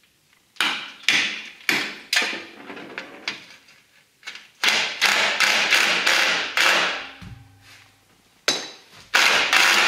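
Cordless 10 mm electric impact driver hammering on a seized air-cleaner bolt. It goes in four short bursts, then in longer runs from about halfway through. The corroded bolt shears off rather than loosening.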